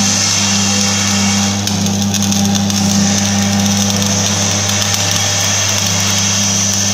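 Electric arc welding with a stick electrode on a steel frame: a steady crackling hiss from the arc over a strong, constant low hum.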